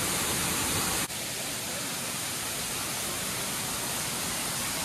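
Steady rush of a small jungle stream running over rocks, a hiss of flowing water, broken once by a brief click about a second in.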